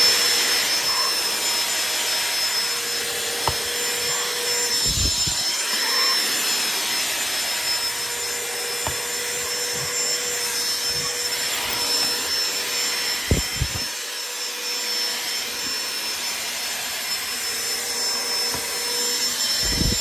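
Dyson DC16 (Root 6) cordless handheld vacuum with a crevice tool running steadily: a high, even motor whine over rushing air. A few dull knocks come through, about five seconds in and again after thirteen seconds.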